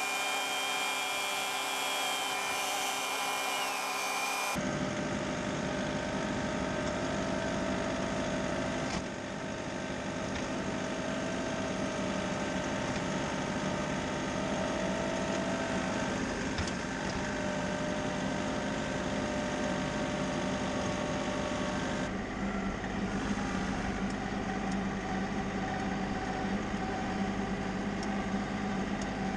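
Engine of a snow-plow vehicle running steadily while it pushes snow off a driveway, with a whine over the engine note. The sound changes abruptly twice.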